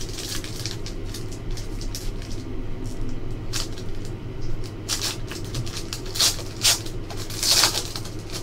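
Foil wrapper of a hockey card pack crinkling and tearing as hands pull it open, with louder crackling rips about five, six and a half and seven and a half seconds in. A steady low hum runs underneath.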